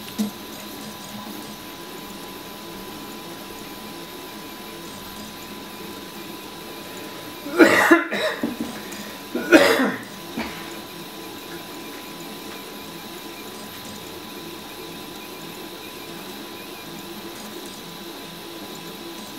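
RepRap Huxley 3D printer running steadily mid-print, with two loud coughs from a person nearby, about eight and nine and a half seconds in.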